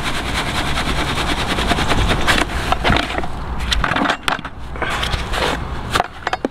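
Pinkies and sawdust being shaken in a mesh bait sieve over a tub to sift the sawdust out: a steady rattling rustle for about four seconds, then a few separate knocks and scrapes as the sieve is lifted and tipped into a bucket.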